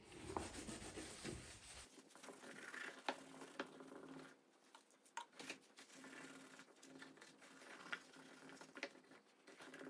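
Faint rubbing of a paper towel wetted with nail polish remover being wiped over a calfskin leather shoe, stripping off old polish and shoe cream, with a few light clicks scattered through it.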